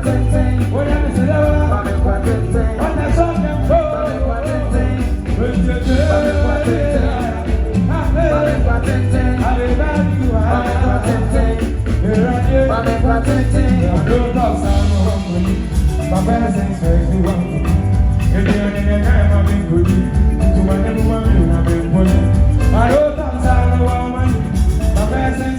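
Live band playing an upbeat song, with a strong steady bass and a melody line over it.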